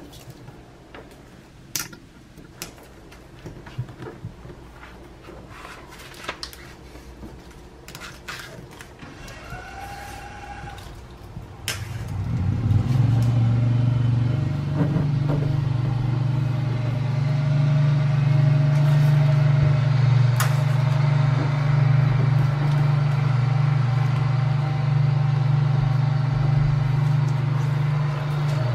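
Light crackles, clicks and rustles of adhesive-tape backing being peeled and a plastic roof spoiler being pressed onto a car's rear window. About twelve seconds in, a loud, steady, low mechanical drone sets in and continues, drowning out the handling sounds.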